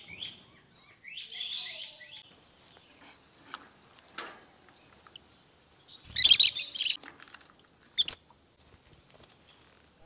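Lovebirds chirping: a short chatter of rapid chirps about a second in, a few faint ticks, then a loud flurry of sharp chirps about six seconds in and a single sharp chirp near the end.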